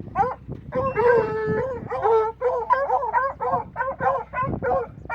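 Hunting dogs baying and yelping on a wild pig's scent trail: a few longer drawn-out howls about a second in, then a fast run of short, high yelps.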